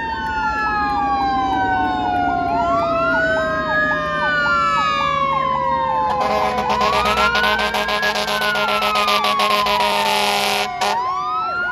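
Federal Q mechanical siren on a 2004 E-One aerial ladder truck winding up and coasting down again and again, over a fast-cycling electronic siren. About six seconds in, the truck's air horns blast steadily for about four seconds, followed by one short blast.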